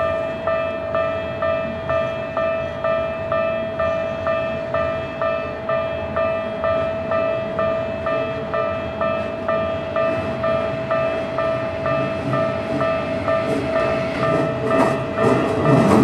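Japanese level-crossing warning bell ringing steadily, its tones pulsing just under twice a second. Near the end the rushing noise of a Keikyu 1000 series electric train grows loud as the train reaches the crossing.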